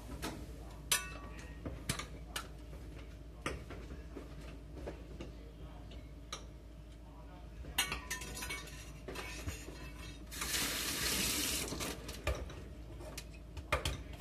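Spoons and utensils clink and knock against bowls and steel pots. Near the end, a kitchen tap runs briefly, for about a second and a half.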